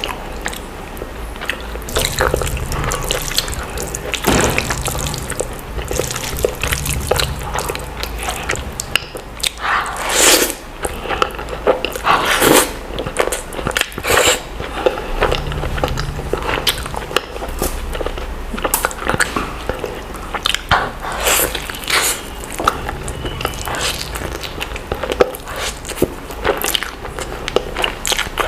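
Close-miked eating sounds of a person slurping and chewing saucy Schezwan noodles: irregular wet smacks and slurps, with longer slurps about ten and twelve seconds in. A steady low hum runs underneath.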